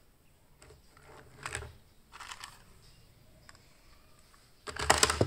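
Small plastic toy cars clicking and clattering against each other as they are picked out of a heap and moved. The sound comes in a few short bursts, the loudest near the end.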